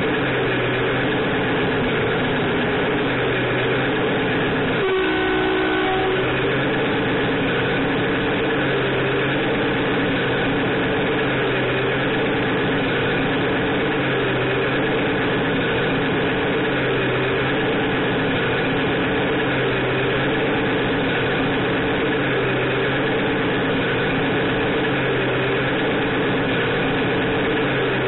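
Electronic diesel truck engine sound from an RC truck's sound module (Beier USM-RC2) playing through its small speaker, running steadily with a slow repeating pulse. About five seconds in, a horn sounds once for about a second.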